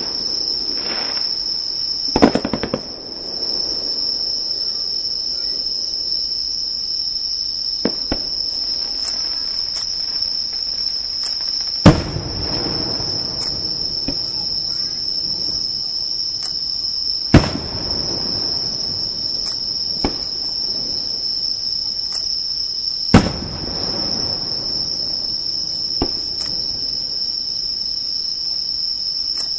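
Fireworks shells bursting at intervals: four loud booms about 2, 12, 17 and 23 seconds in, the first with a crackle, and smaller pops between, each trailing off in a rolling echo. Under them, a steady high insect trill.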